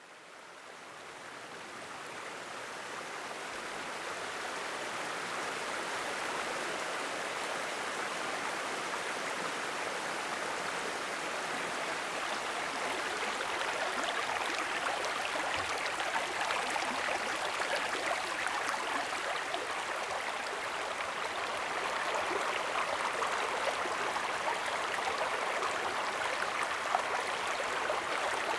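Rocky woodland stream running steadily, a continuous rush of water. It fades in over the first few seconds.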